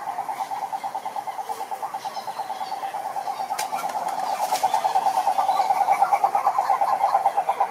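A frog giving one long, rapid pulsed trill, about ten pulses a second, which grows louder partway through.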